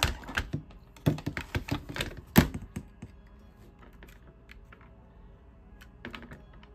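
Sharp metallic clicks and taps of a tool on an airsoft M4's receiver while the body pin is being punched out: a quick run of taps in the first three seconds, the loudest about two and a half seconds in, then a few lighter clicks near the end.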